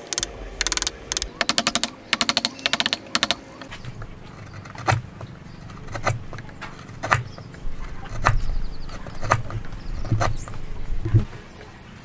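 Steel chisel cutting a mortise in a timber block: quick runs of rapid clicking scrapes for the first few seconds, then separate sharp knocks about once a second as the chisel is driven into the wood.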